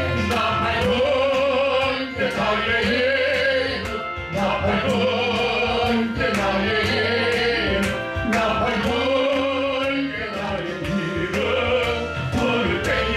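Worship song sung with band accompaniment over a steady drum beat.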